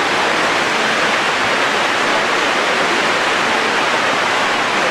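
Water cascading down the walls of a 9/11 Memorial reflecting pool into the basin below: a steady, even rush of falling water.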